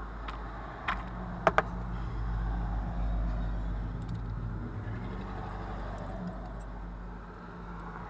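Keys and the key-duplicating machine's vise being handled: a few sharp metal clicks in the first two seconds, over a steady low hum.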